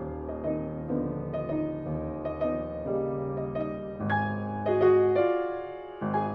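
Background music led by piano, with notes and chords changing every half second or so over held low notes.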